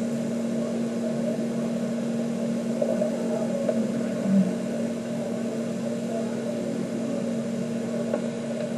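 Steady machine hum with a constant low tone, typical of medical equipment running beside a NICU incubator.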